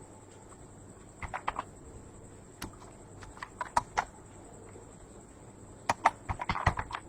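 Computer keyboard keys clicking in short, irregular clusters of sharp clicks, with a faint steady high-pitched whine underneath.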